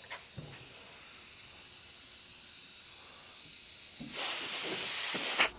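Hand-pump pressure sprayer misting liquid onto a sanded body-filler patch: a soft, steady hiss, then a much louder hiss lasting about a second and a half near the end.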